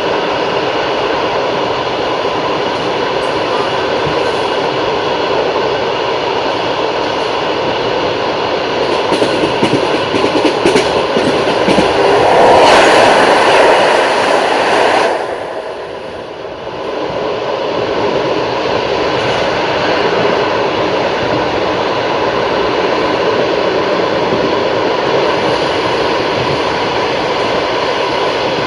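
Passenger train running along the track, with a continuous roar of wheels on rails. It swells to its loudest about halfway through, drops off sharply for a moment, then settles back into the steady running noise.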